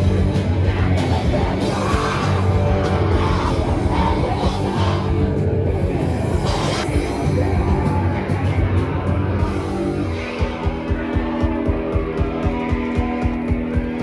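Live punk rock band playing loud with electric guitars, bass and drums. About ten seconds in, the full band drops to a held chord over a steady drum beat.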